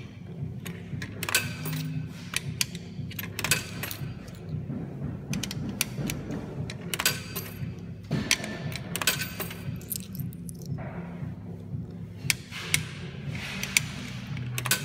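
Irregular sharp clicks and knocks over a steady low mechanical hum.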